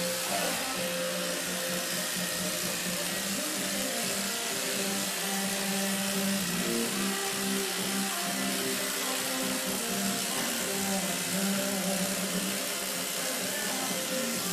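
Music playing from a radio, over a steady hiss.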